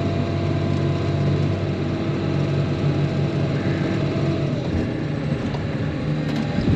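A Caterpillar wheel loader's diesel engine running steadily, heard from inside the cab as the loader moves up to the silage face; the engine note shifts briefly about two-thirds of the way through, and there is a short knock near the end.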